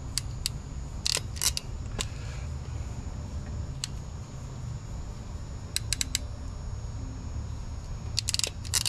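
Hand wire stripper/crimper clicking and snipping as wires are stripped and pink butt connectors are crimped on, in short irregular clusters of sharp clicks over a steady low hum.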